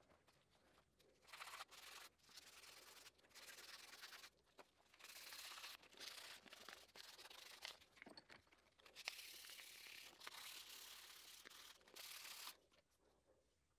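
Faint scratchy rubbing of fine sandpaper worked by hand over a micarta knife handle, in uneven back-and-forth strokes that start about a second in and stop near the end.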